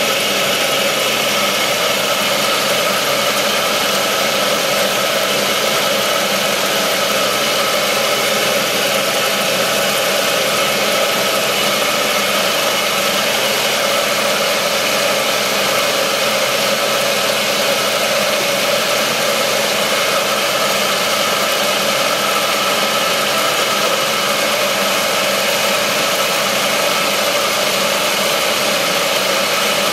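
Homemade wood lathe running at a steady speed with a constant hum, spinning a wooden spindle while a turning tool works it.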